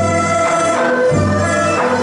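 Chinese traditional instrumental ensemble playing: dizi bamboo flutes and an erhu carry the melody in sustained notes over a low bass note that repeats about once a second.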